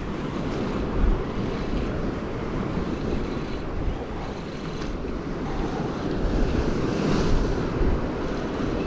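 Ocean surf washing against jetty rocks, a steady rushing sound with small swells, mixed with wind buffeting the microphone.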